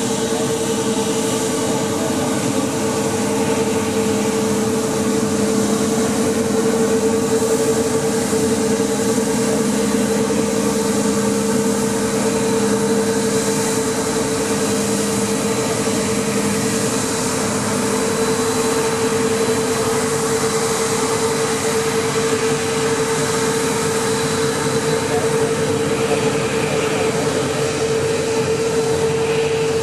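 Jet airliner turbines running steadily: a constant rushing noise with a steady mid-pitched hum through it, unchanging throughout.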